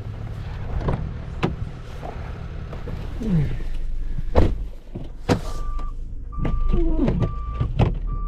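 Truck idling with a few sharp knocks and clicks, then a reversing alarm starts beeping about once a second, about five seconds in, as the truck backs up.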